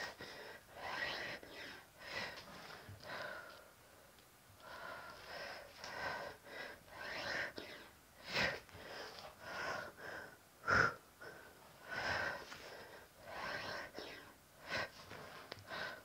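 A woman breathing hard through a bodyweight exercise set of push-ups and side-plank reaches, with short, forceful exhales about once a second. One sharp knock about eleven seconds in.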